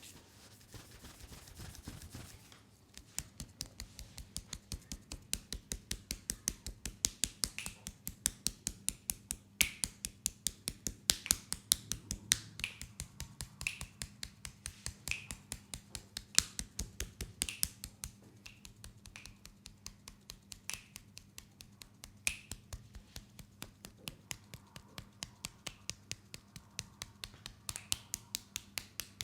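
Hands rubbing over oiled skin, then from about three seconds in a fast, steady run of sharp taps and slaps of hands on the oiled leg, several a second, as in percussive massage.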